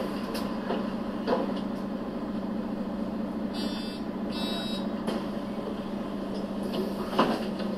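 Mercedes-Benz O 530 GL CapaCity articulated bus running with a steady low engine hum. Two short buzzer tones sound a little before halfway, and a few light knocks come and go.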